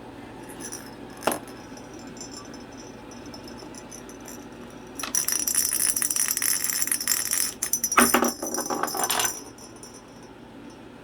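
Metal chain and lock hardware jangling: one sharp click about a second in, then loud, rapid metallic rattling for about four seconds.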